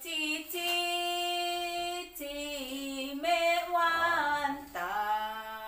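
A woman singing a simple song unaccompanied, holding long, drawn-out notes.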